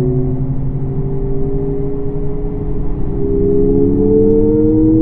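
Abarth 600e Scorpionissima electric car's sound generator playing its synthetic engine note, rising slowly in pitch as the car accelerates.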